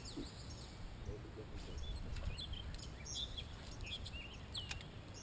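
Songbirds calling and singing, a scatter of short high chirps and whistles with a gliding whistle near the end, over a steady low rumble.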